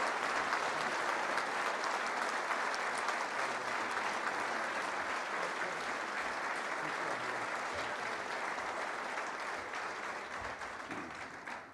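Audience applauding steadily after a speech, slowly fading toward the end.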